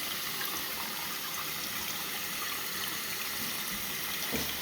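Water running steadily through a toilet's fill valve into the cistern as the tank fills, just after the supply valve was opened, with a steady hiss.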